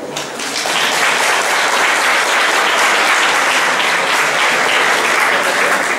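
Audience applauding, building up over the first second and then steady.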